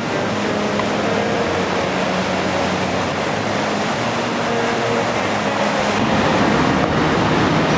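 Steady rushing roar of breaking ocean surf, with a few faint held tones underneath.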